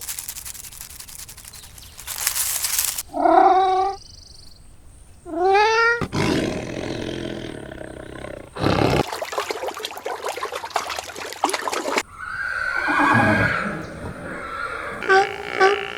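A string of different animal calls cut one after another: rough, noisy hissing and growling stretches, two pitched wavering cries, and a quick run of short pitched calls near the end.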